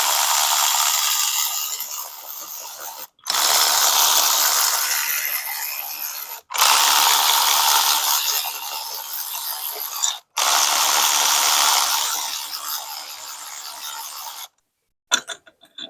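Handheld power tool running four times, about three seconds each with short breaks between, each run starting loud and easing off: spinning out the cylinder head bolts of a Predator 224cc engine.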